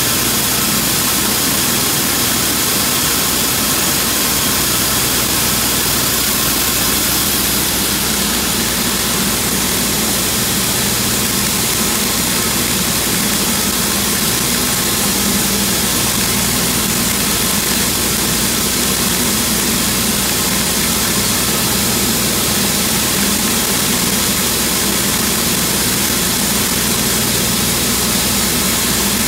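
VMek Element optical color sorter running soybeans: a steady, loud machine noise, a low hum under a strong hiss that does not change.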